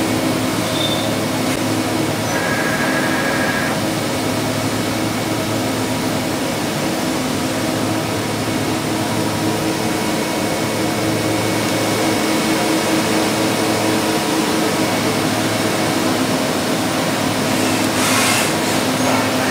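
FANUC RoboDrill vertical machining center running a cutting program, its spindle and the machine making a steady whirring hiss with several steady tones. Near the end there is a brief, louder rush of hiss.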